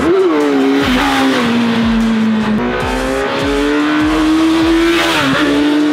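Kawasaki Z1000's inline-four engine through Akrapovic carbon slip-on exhausts, running hard at high revs under throttle as the motorcycle rides toward the pass. The pitch holds high, dipping briefly near the start and again about five seconds in.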